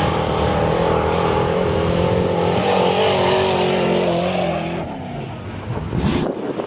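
Off-road race truck's engine revving hard as it charges past on a dirt track. The pitch holds high, then drops and fades away about four and a half seconds in as the truck goes by. A short rushing noise follows near the end.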